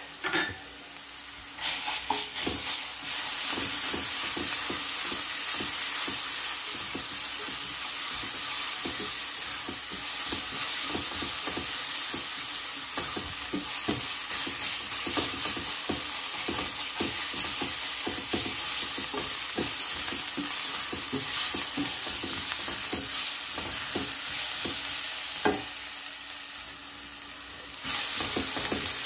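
Chopped onions with ginger-garlic paste frying in oil in a nonstick kadai, sizzling steadily while a spatula stirs and scrapes them with many short strokes against the pan. The sizzle starts about two seconds in and dips briefly near the end before picking up again.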